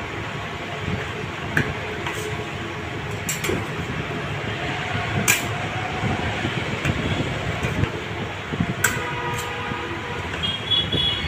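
Metal spatulas tapping and scraping on the steel cold plate of a rolled ice cream counter: sharp clicks at irregular intervals, the loudest about five seconds in, over a steady low rumble.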